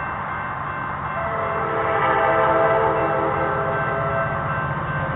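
Diesel freight locomotive's multi-chime air horn sounding one long chord starting about a second in, over the low rumble of the approaching train's engines.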